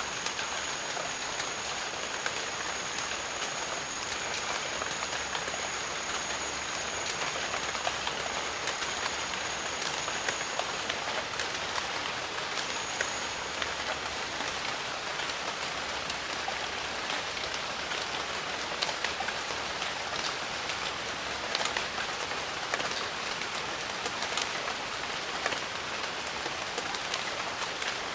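Steady rainfall, a dense even hiss with many individual drops ticking close by. A thin, steady high-pitched whine sits over the rain for about the first ten seconds, then stops and returns once briefly.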